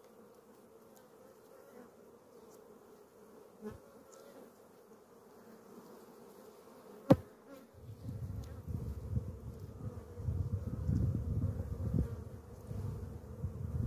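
Honeybee colony buzzing steadily from an open hive. A sharp knock comes about halfway through, and from then on a low rumble sits under the buzz.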